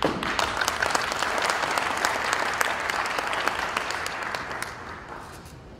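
Audience applauding: dense clapping that starts suddenly and fades out over about five seconds.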